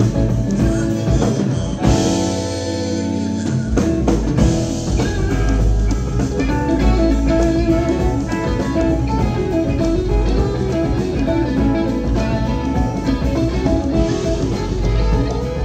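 Live band playing an instrumental passage: electric guitar lines over bass, drum kit and hand-played congas, with one held chord about two seconds in.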